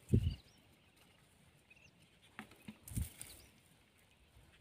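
Hands working a cast net with its weight chain: soft rustling and a few light clicks, with a low thump at the start and another about three seconds in. Small birds chirp faintly in the background.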